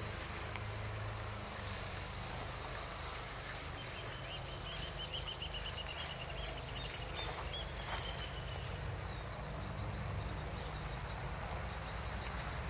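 Rural field ambience: insects chirping, with short high bird whistles repeating and a trilling call in the middle, over a steady low rumble.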